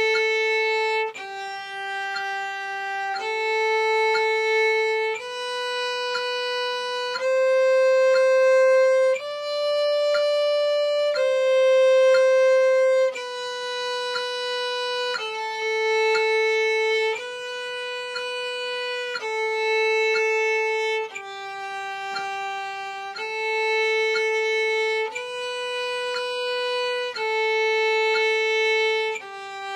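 Solo violin playing a slow stepwise melody of long bowed notes, each held about two seconds, with a clean bow change between notes.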